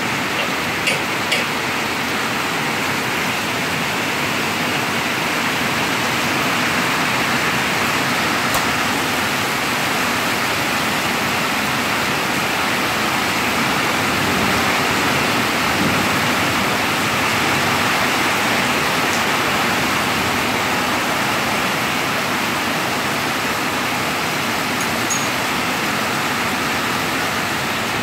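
Heavy rain falling on a tin roof: a steady, dense hiss.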